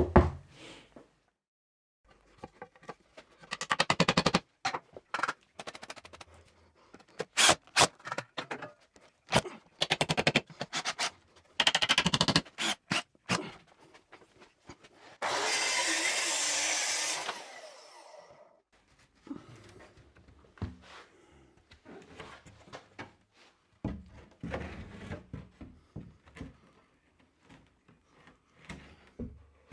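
Workshop work on OSB boards: rapid rattling bursts and sharp knocks from a cordless drill and from handling boards, then a Festool plunge saw running on its guide rail and cutting a board for about two and a half seconds. After that come softer scrapes and knocks as panels are handled.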